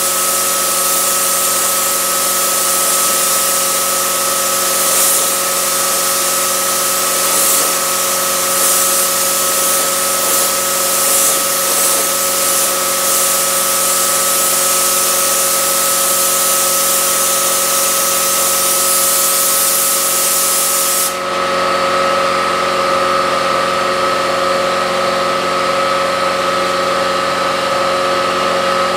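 Gravity-feed spray gun hissing steadily as it sprays paint onto car body panels, surging briefly a few times. About three-quarters of the way through the spray cuts off suddenly, leaving a steady machine hum that runs underneath throughout.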